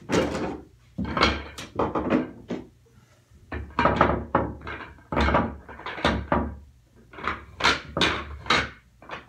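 Pool balls clacking against each other and rolling on the cloth as they are gathered and packed into a triangle rack: an irregular run of sharp knocks and clicks that stops shortly before the end.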